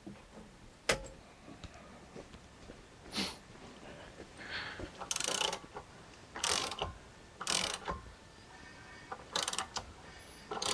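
Starter motor turning the car engine over in short blips, about six brief bursts spread a second or so apart, after a sharp click about a second in. The engine does not fire: there is no spark at the plugs.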